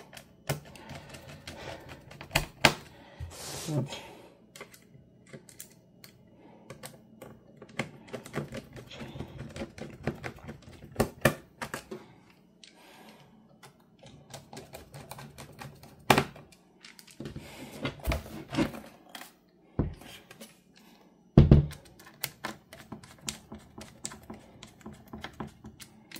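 Irregular small clicks and taps of a precision Phillips screwdriver driving the screws back into a Dell Precision 7670 laptop's bottom case, with a few louder knocks and thumps as the laptop is turned and handled on the wooden desk.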